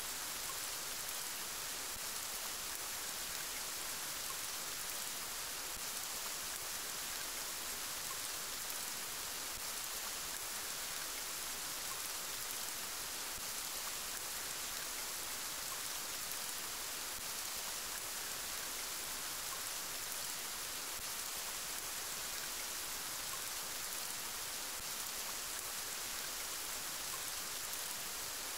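Steady rain falling, an even hiss that holds level throughout without breaks or surges.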